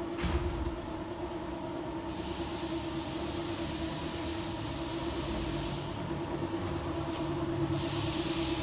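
Compressed-air spray gun spraying primer, its hiss starting about two seconds in, stopping for about two seconds and starting again near the end, over a steady machine hum. A brief low bump just after the start.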